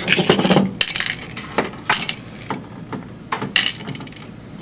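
Screwdrivers and small steel screws clicking and clinking against a perforated sheet-metal power-supply cover, with screws dropped into a cup, in quick irregular clusters of clinks.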